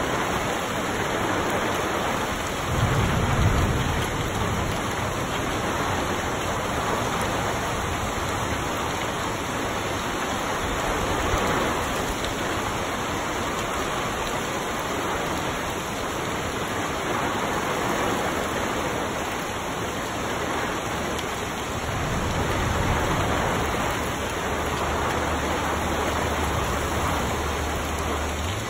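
Heavy rain falling steadily on trees and grass, a dense even hiss. Low rumbles of thunder come in about three seconds in and again from about twenty-two seconds until near the end.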